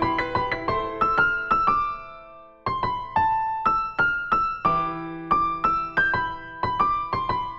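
Instrumental background music: a keyboard playing a melody of struck, decaying notes. The notes die away about two seconds in and pick up again just under a second later.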